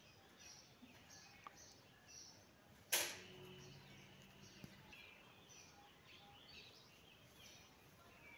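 Faint outdoor ambience of small birds chirping over and over, with one sharp click about three seconds in.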